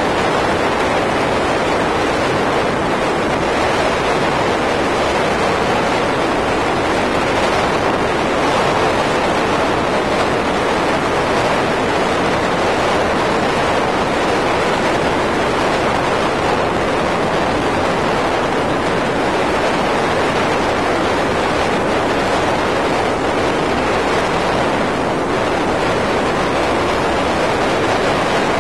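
Steady rush of wind and road noise from a car travelling at highway speed, with no breaks or separate events.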